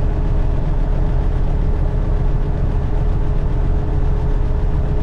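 Light aircraft's piston engine and propeller running steadily at low power, heard inside the cockpit as a loud, even rumble with a steady hum.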